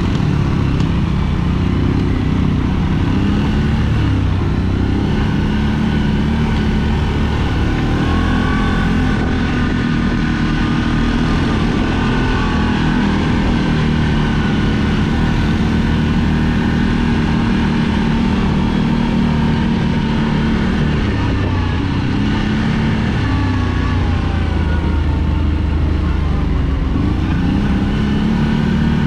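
CFMOTO CForce ATV engine running under way on a dirt trail, its note rising and falling gently with the throttle.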